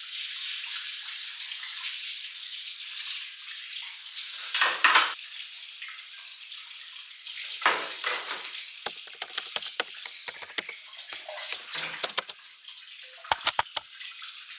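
Tap water running into a sink during hand dish-washing, with a few louder gushes. Dishes and cutlery clink and knock against each other, the clinks coming thick and fast in the second half.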